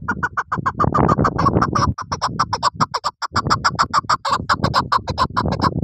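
Hen chukar partridge calling: a rapid, even run of clucking notes, about eight a second, with a brief break about three seconds in.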